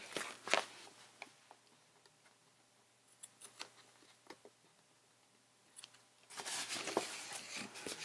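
Scissors snipping the ends off a strip stuck along the edge of a card journal cover: a few small, sharp clicks. About six seconds in, a louder rustling and scraping as the paper and card are handled.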